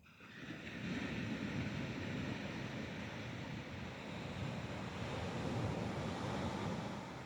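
Thunder rumbling after a lightning strike over the ocean. It builds over about a second, rolls on for several seconds, and eases near the end.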